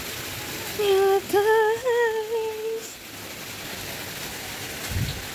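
A woman humming a few wavering notes for about two seconds, over a steady background hiss; a short low thump near the end.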